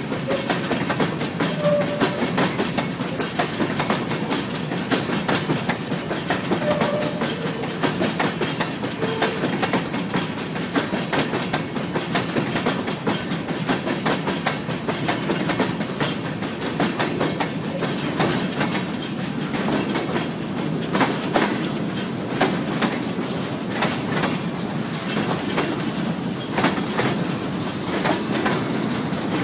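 Freight train rolling past at close range, its steel wheels clicking over the rail joints in a steady clickety-clack. The cars are covered hoppers giving way to centerbeam flatcars.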